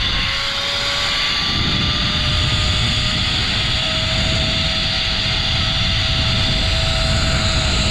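A zipline trolley's pulleys running along the steel cable at speed: a thin whine that climbs slowly in pitch. Under it is a heavy rush of wind on the microphone.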